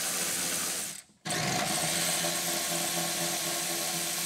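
Cordless electric ratchet running with a steady motor whine as it spins out 11 mm bolts on the front of the hybrid battery; it stops briefly about a second in, then runs again for about three seconds.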